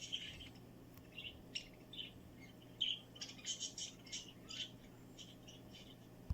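Quick high-pitched chirps and squeaks from a small animal, irregular, several a second in places, over a low steady hum.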